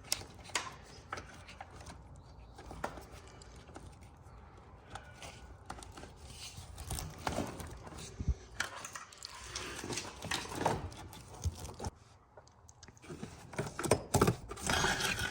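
Wiring harness connectors being worked through a rubber grommet in a car's firewall by hand: scattered small clicks, rubbing and rustling of wires and plastic, busier about two thirds of the way in and again near the end.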